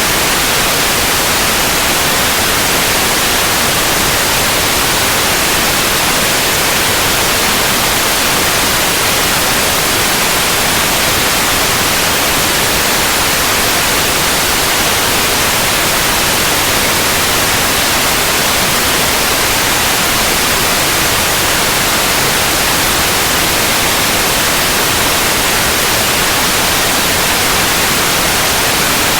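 Steady, unchanging white noise, an even hiss with no other sounds in it.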